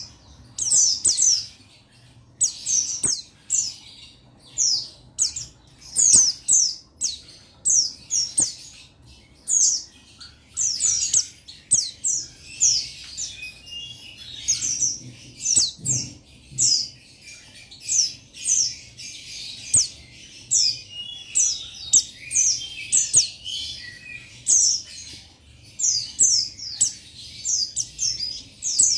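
Buxtoni white-eye (pleci) singing, calling out to a rival: quick, high-pitched falling chirps in rapid clusters, broken by busier twittering passages.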